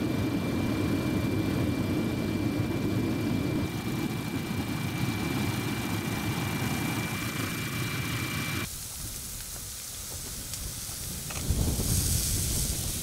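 Steady aircraft engine noise heard from on board, with a thin steady whine, cutting off abruptly about nine seconds in. Near the end, a fire hose spraying water with a hiss.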